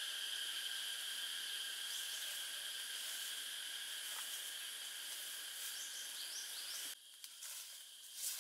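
Steady chorus of insects, a continuous high-pitched drone, that cuts off abruptly about seven seconds in.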